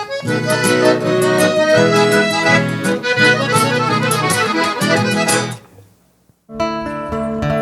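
Accordion-led Gaúcho band playing an instrumental passage at the end of the song. It fades out about five and a half seconds in, and after a moment of near silence, other music begins with held chords.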